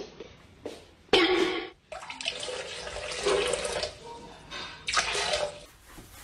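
Water splashing and sloshing in a toilet bowl as a husky stands with a hind leg in it. Two short, loud, sudden sounds break in, one about a second in and one near the end.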